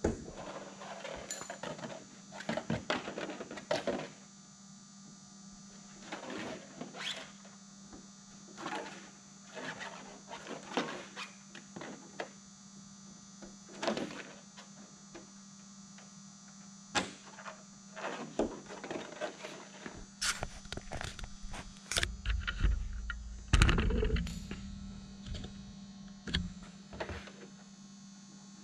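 Hands working on the taut fabric covering of a light-aircraft wing while fitting wire rib clips: irregular rustles, scrapes and small clicks, with a heavier thump about 23 seconds in. A steady electrical hum runs underneath.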